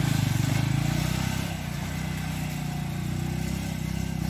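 Motorcycle engine running as the bike pulls away along a rough dirt track, getting a little quieter about a second and a half in.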